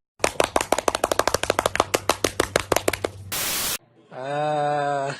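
A rapid run of sharp cracks, about nine a second for three seconds, over a low hum, like rapid gunfire; then a short burst of static and a held, pitched note that dips at its end.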